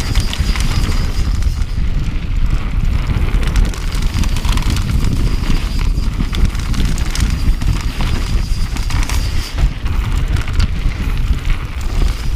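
Mountain bike riding fast down a dirt singletrack: wind buffeting the microphone in a heavy, irregular rumble, with tyres crunching over the dirt and the bike clattering and rattling over bumps.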